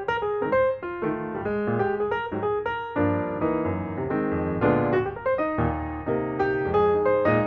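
Background piano music: a run of light, quick notes, with fuller chords coming in about halfway through.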